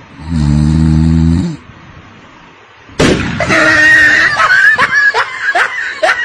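A low, steady snore lasting about a second. About three seconds in there is a sudden loud slap and splat, and a woman's shrieking, laughing cries follow in quick, repeated rising-and-falling bursts.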